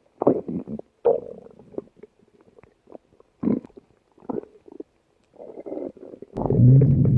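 Stomach gurgling: a string of short, irregular gurgles, then a louder, continuous low rumble that starts near the end.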